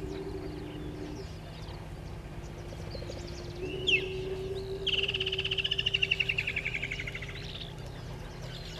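Woodland kingfisher calling: a sharp single note about four seconds in, then a long, rapid trill that slowly falls in pitch, with fainter bird chirps and a steady low drone behind it.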